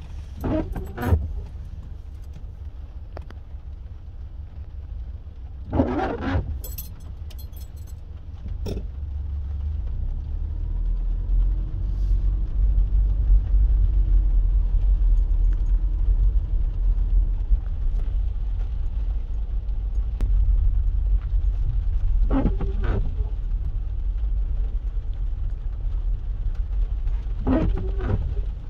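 Low vehicle rumble heard from inside a car's cabin, growing louder about ten seconds in and then holding steady, with a few short sharper noises along the way.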